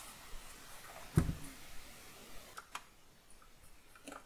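Handling noise from a sheet-metal power supply case being turned over in the hands: one sharp knock about a second in, then a few light clicks.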